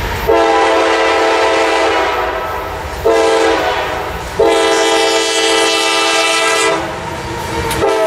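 Freight locomotive's multi-chime air horn sounding for a grade crossing: a long blast, a short one, another long blast and a brief blast near the end, over the low rumble of the approaching train.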